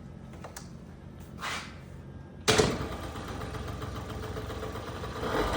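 A 2001 Derbi's small engine, choke on, with a freshly rebuilt Dellorto carburetor, catches on a kick start about two and a half seconds in. It then keeps running steadily, getting louder near the end.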